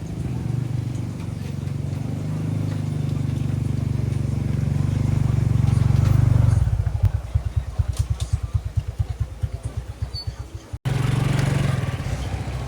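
An engine running with a steady low hum that grows louder. After about six seconds it drops to a rapid, even chugging, as at idle. Near the end it cuts abruptly to another steady engine hum.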